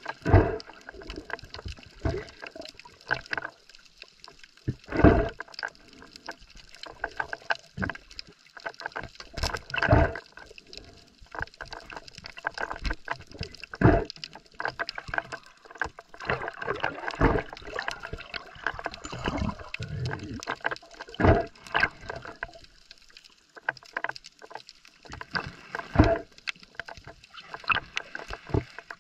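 Muffled underwater sound heard through the camera housing: gurgling water with irregular knocks and bubbly bursts every few seconds as a speared fish is handled on the spear shaft and stringer.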